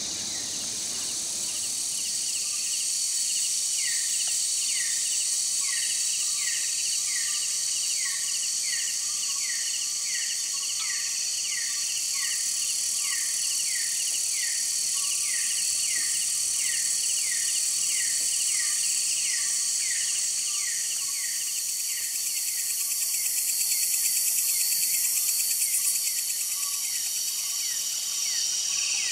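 Dense night chorus of rainforest insects: a steady high-pitched shrill buzz. A few seconds in, a short falling chirp starts repeating about twice a second over it.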